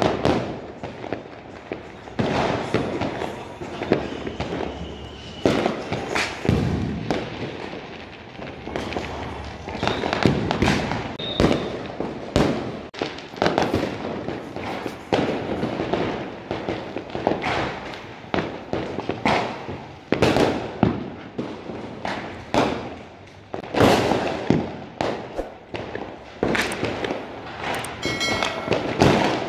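Diwali firecrackers and fireworks going off all around in a continuous, irregular barrage of bangs, some close and loud, many more distant.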